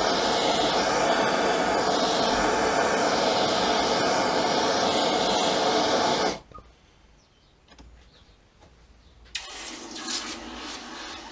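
Handheld gas blowtorch burning steadily as it reheats hardened steel centres to temper them to a light straw colour; the flame cuts off suddenly about six seconds in. After a short lull, a hiss near the end as the hot steel is quenched in a bucket of water.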